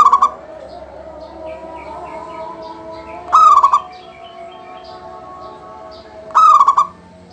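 Local zebra dove (perkutut) in full song. Three loud calls about three seconds apart, each a quick rising note breaking into a rapid stuttering trill. Fainter chirping of other birds runs underneath.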